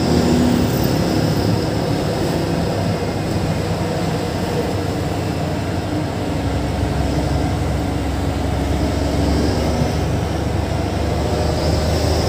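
Sany dump truck's diesel engine and tyre noise heard inside the cab while driving along. The low engine drone grows stronger about halfway through.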